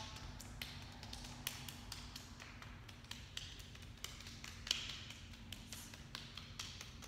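Hands patting down the arms and shoulders, a quick, uneven run of light pats from two people tapping at once.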